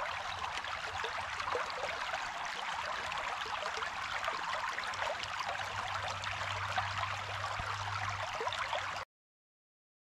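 Shallow creek babbling steadily over rocks and riffles; it cuts off suddenly about nine seconds in.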